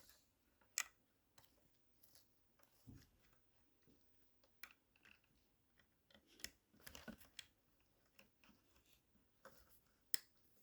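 Faint, scattered clicks and taps of small plastic connectors and wires being handled and pushed onto a vacuum cleaner motor, a small cluster of them about two-thirds of the way through, over near silence.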